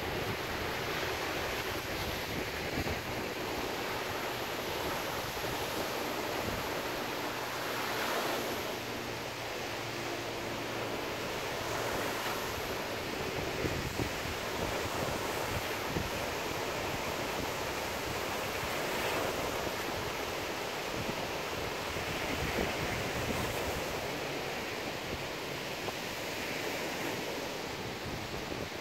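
Ocean surf breaking and washing onto a sandy beach, a steady wash of noise, with wind buffeting the microphone.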